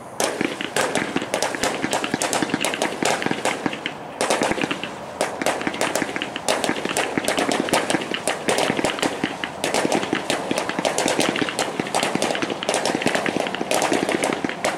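Four consumer 1.4G comet cakes firing at once: a fast, dense run of launch reports, one on top of the next, starting abruptly and keeping on without a break.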